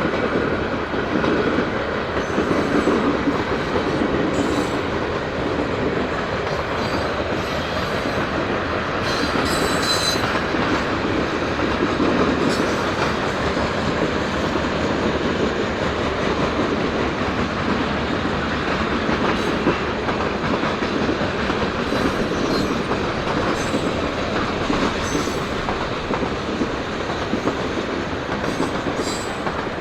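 Canadian National freight train's cars rolling past at steady speed, a continuous rumble of wheels on rail with brief high squeaks here and there.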